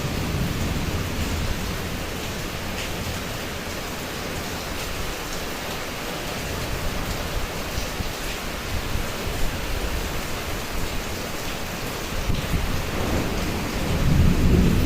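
Typhoon rainstorm: steady rain with a deep rumble that eases off and then grows louder again near the end.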